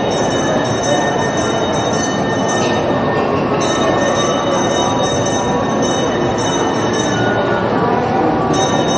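A mall ride train running: steady running noise with a thin, constant high whine over it.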